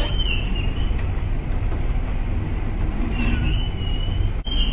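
A hospital isolation-room door with a push plate is pushed open and swings shut, giving a click at the start and faint high squeaks, over a steady low rumble.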